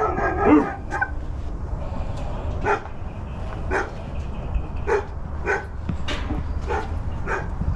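A dog barking repeatedly, about ten short barks spaced roughly a second apart.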